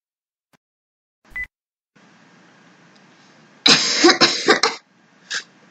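A person coughing several times in quick succession, a rough, sickly cough, with a short blip about a second before. The coughs come again briefly near the end.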